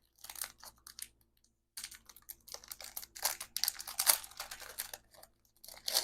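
Craft-supply packaging being handled: a rapid, irregular run of small clicks and crinkles of plastic, pausing briefly after about a second and a half.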